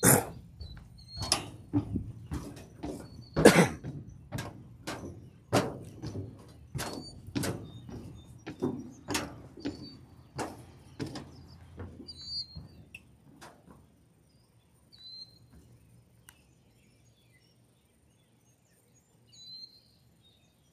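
Footsteps on metal bleachers, a thunk at each step at a walking pace for about the first thirteen seconds, then they stop. Short bird chirps come through faintly.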